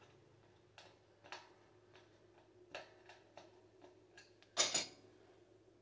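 Scattered light clicks and taps of a Phillips screwdriver and screws against the gas heater's metal parts as screws are fitted into holes that are not lining up well, with one louder, brief clatter about four and a half seconds in.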